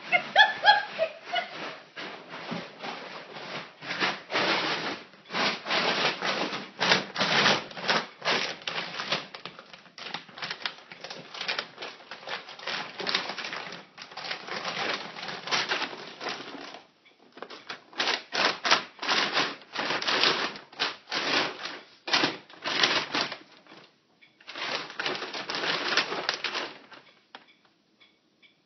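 Plastic dog food bag crackling and rustling as a dog noses and digs into it. The crackle comes in long runs of a few seconds with short breaks.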